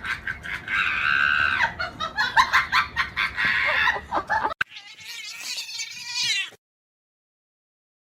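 Cat meowing: a long, drawn-out meow about a second in, then, after a sudden cut, another drawn-out cat call whose pitch wavers. The sound drops out completely about two-thirds of the way through.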